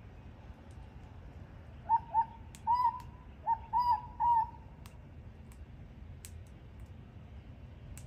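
Australian king parrot calling with about six short, clear piping whistles, each rising and falling in pitch, in two quick groups of three.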